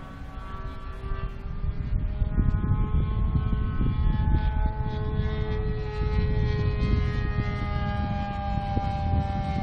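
O.S. Max .75 glow engine of a radio-controlled model airplane flying overhead, a steady high whine whose pitch drifts slowly, over wind rumbling on the microphone.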